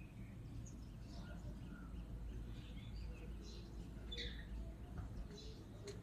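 Birds giving scattered short chirps and calls over a steady low background rumble.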